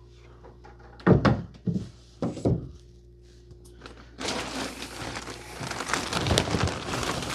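Wood shavings being handled as bedding for a chick brooder box: a few dull thunks, then from about four seconds in a steady dry rustling as the shavings are poured and spread.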